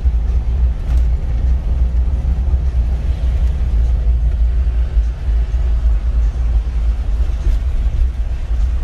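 Isuzu Elf campervan driving along the road, heard from inside the cab: a steady, loud low rumble of engine and road noise.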